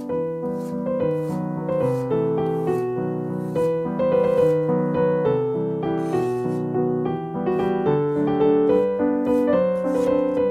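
Background piano music. Behind it, short crisp cuts at an uneven pace, with pauses: a knife slicing garlic cloves on a wooden cutting board.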